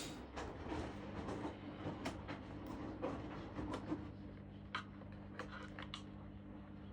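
Irregular light clicks and knocks from handling small parts and tools at a repair bench, dense in the first few seconds and sparser later, over a steady low electrical hum.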